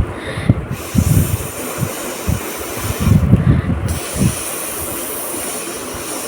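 A person blowing their nose hard again and again, several short forceful blasts, over a steady background hiss.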